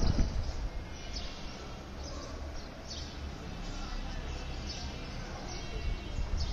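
Ambient background: a steady low rumble with short, falling bird chirps about once a second. A brief low thump comes right at the start.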